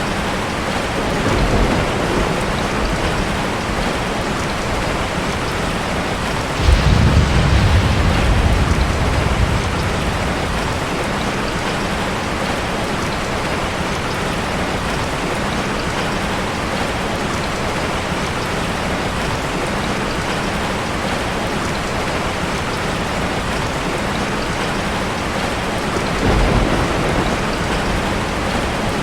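Steady rain, with a clap of thunder about six and a half seconds in that rumbles for about three seconds, and softer rumbles of thunder near the start and near the end.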